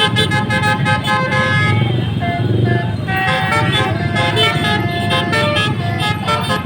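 Basuri 'telolet' multi-tone bus horn playing a tune of stepped notes, changing pitch every fraction of a second, over the low rumble of the bus engine.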